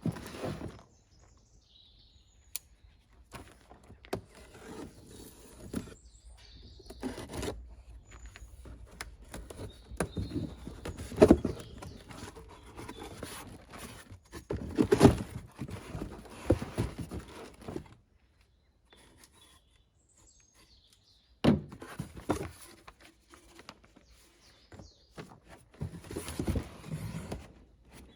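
Boxes and packaging being handled: irregular knocks, scrapes and rustles, with birds chirping faintly.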